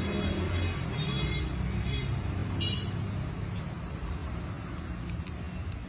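Steady low rumble of street traffic, with a few brief, faint higher-pitched sounds in the first half.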